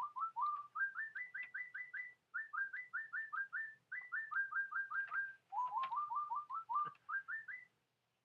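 A bird singing: a rapid string of short, rising whistled notes, about five a second, in runs that step up and down in pitch, with a couple of brief pauses.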